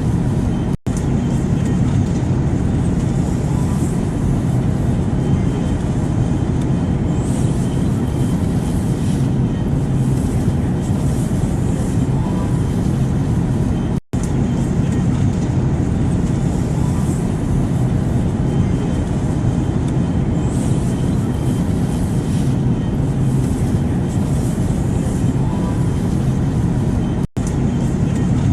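Steady airplane cabin noise in flight: an even, low rushing sound with a faint hum, broken by three very short dropouts about 1, 14 and 27 seconds in.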